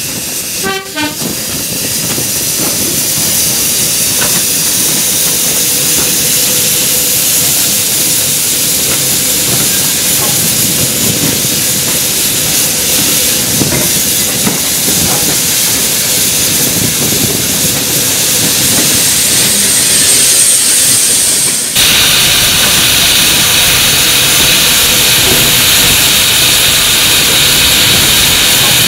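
Running noise of the Bulleid West Country class Pacific 34027 Taw Valley and the train running beside it: a steady, loud rush with steam hiss. The sound changes abruptly about three quarters of the way through.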